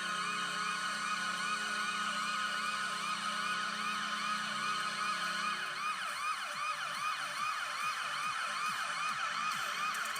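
Washington Capitals arena goal horn: a steady low horn blast with a warbling siren sweeping up and down over it about two to three times a second. Around six seconds in the horn drops out and the siren wails carry on, layered more thickly.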